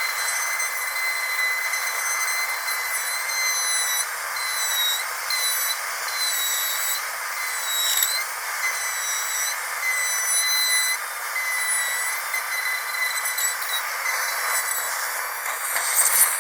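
Dental drill whining at a steady high pitch over a hiss, the pitch dipping briefly every few seconds. Near the end the hiss swells briefly louder.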